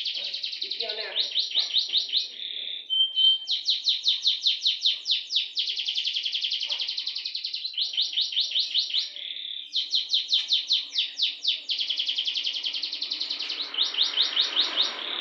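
Domestic canary singing a long song of rapid trills and rolls, the runs broken only by short pauses, with one brief pure whistled note about three seconds in.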